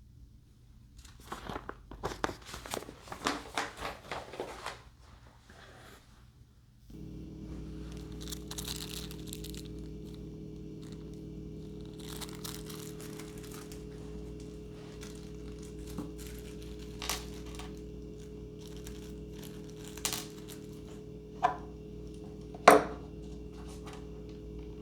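Packaging crinkling and tearing for a few seconds as model airplane parts are unwrapped. About seven seconds in, a steady low hum starts, and a few sharp clicks and knocks of parts being handled follow, the loudest near the end.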